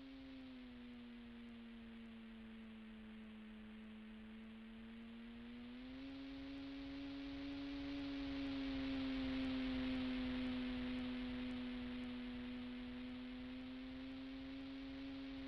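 RC plane's motor and propeller droning at a steady pitch. The pitch dips slightly just after the start and steps back up about six seconds in, as the throttle changes. The drone and a rushing hiss grow louder around the middle.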